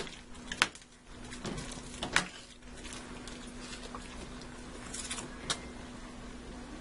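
Metal spoon stirring chicken broth in a stainless steel skillet, clinking against the pan a few times, loudest about two seconds in, over a steady low hum.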